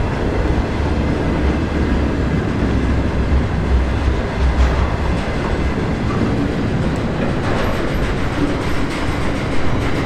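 Container wagons of an intermodal freight train rolling past in a steady rumble of steel wheels on rail. Clicks and clacks over the rail joints grow more frequent in the second half.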